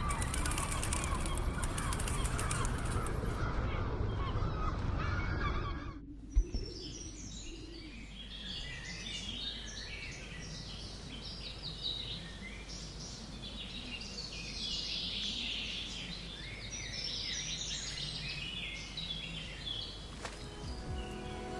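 Many birds chirping and calling at once, short rising and falling calls overlapping throughout. A louder, denser sound cuts off abruptly about six seconds in, leaving the birds clearer. Music comes back in near the end.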